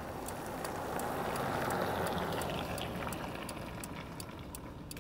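A passing car's tyre hiss swells and fades, loudest about two seconds in, over a steady light ticking a few times a second.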